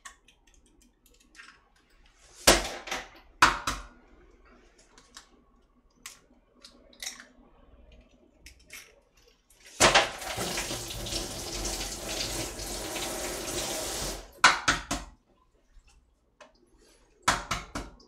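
Kitchen tap running into a steel sink for about four seconds in the middle. Before it come two sharp cracks about a second apart, eggs being broken on the rim of a pot, and after it a few short knocks and clatters.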